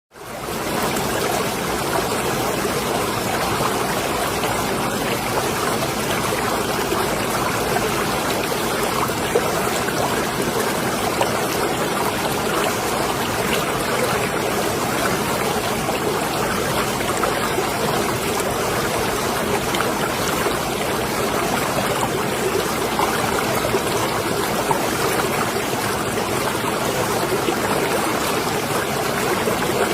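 Marina water lapping and trickling steadily, a continuous splashing wash that fades in at the start.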